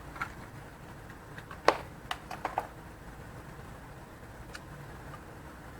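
A few sharp clicks and taps of small parts and tools being handled on a workbench: one loudest about two seconds in, a quick cluster just after, and a faint one near the end, over a steady low room hum.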